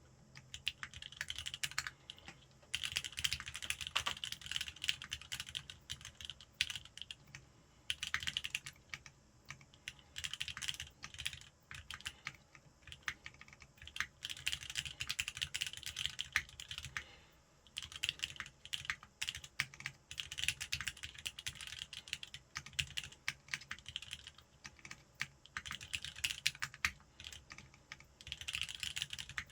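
Typing on a Linworks Whale custom mechanical keyboard with lubed linear Cherry MX Black (Wyse) switches, an aluminium plate in a sandwich mount and Ramaworks Heavy Industry keycaps: quick runs of key strokes with short pauses every few seconds.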